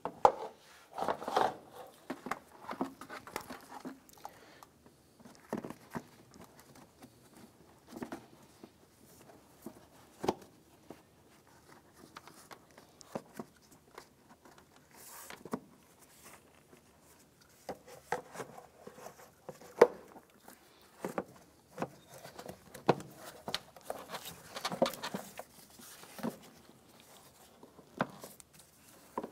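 Irregular plastic knocks, clicks and rubbing as a car's air cleaner housing and intake duct are handled and fitted into place, busiest near the start and again a few seconds before the end.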